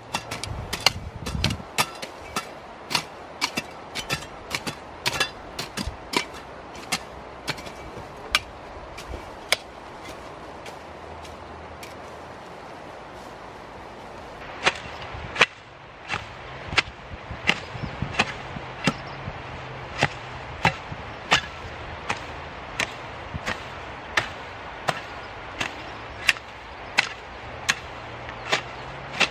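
Hand hoe chopping into soil and weeds while weeding a cassava field, in sharp strikes about one to two a second. The strikes pause for a few seconds about midway, then resume at a steady pace.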